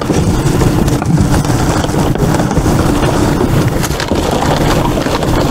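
Rummaging through trash in a dumpster: cardboard boxes and plastic bags rustling and knocking over a steady low rumble.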